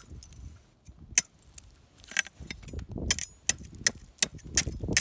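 Wooden stick jabbed repeatedly into thin pond ice, making about a dozen sharp cracks and chips at irregular intervals as pieces break out of the surface.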